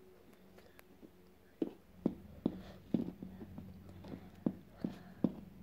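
Plastic hooves of a Schleich toy horse figurine tapped on a hard floor in a clip-clop walking rhythm, about two clicks a second, starting about a second and a half in.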